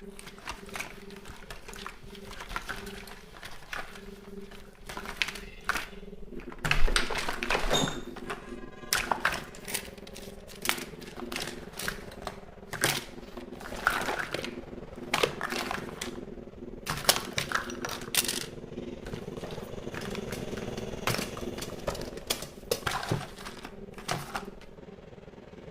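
Irregular clicks, taps and rustles, as of small objects being handled, over a steady low hum.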